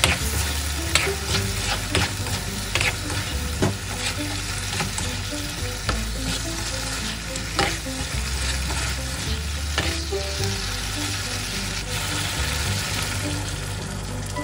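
Chicken thigh pieces with onion, tomato and curry powder sizzling in a nonstick wok as a spatula stir-fries them, the spatula repeatedly scraping and knocking against the pan.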